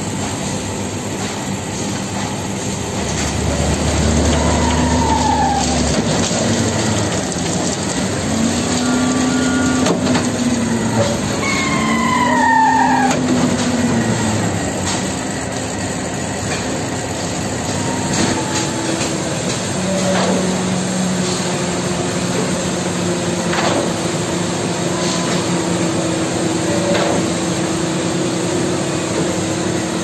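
Concrete pump truck running under load while pumping concrete: a steady diesel and hydraulic drone whose pitch rises and falls several times in the first half, then a few sharp knocks from the pumping machinery in the second half.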